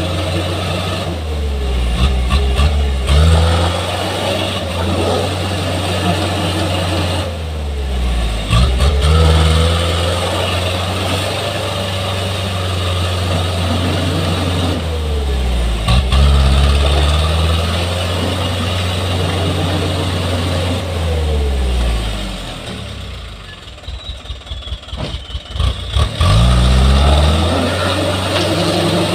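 Hino Dutro truck's diesel engine revving up hard about four times and dropping back between pushes, as the truck strains to drive out with its rear wheels sunk in wet mud. About two-thirds of the way through it drops low and runs unevenly for a few seconds before revving up again.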